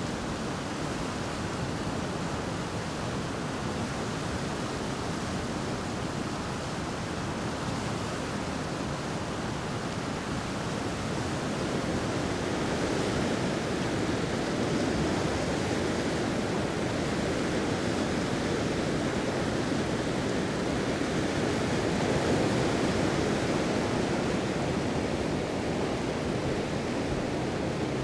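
Rushing river rapids: a steady whitewater rush over rocks, growing a little louder about halfway through.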